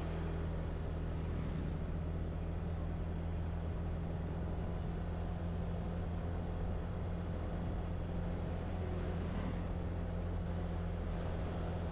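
Motorcycle engine running steadily while riding at an even speed: a low, steady hum that holds nearly the same pitch.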